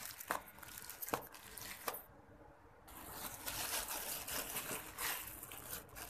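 Crinkling of a plastic spice packet as whole spices are handled, with three light clicks in the first two seconds.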